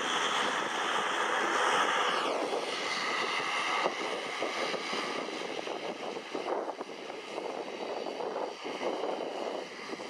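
Airbus A321neo airliner's jet engines running on final approach, a steady rushing drone with a whine that falls in pitch about two seconds in.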